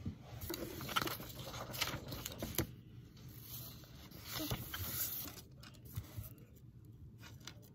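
Rustling and scraping handling noise as paper and the camera are moved about on a table, with scattered light clicks and knocks.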